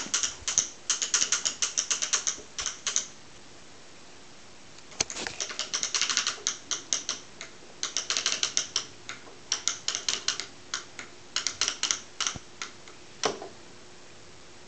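Wooden push-along walker wagon clicking and rattling in quick runs as a toddler pushes it, several clicks a second, in three stretches with pauses between, and a single duller knock near the end.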